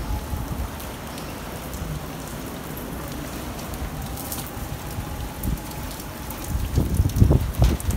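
Typhoon rain and wind: a steady hiss of rain on wet pavement, with heavier, uneven low rumbling gusts hitting the microphone in the last second or so.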